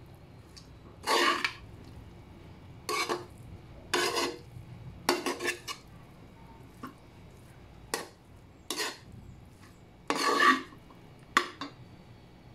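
Metal spatula scraping and stirring a cooked cabbage, corn and ground-meat filling around a metal wok, in about eight separate short scrapes.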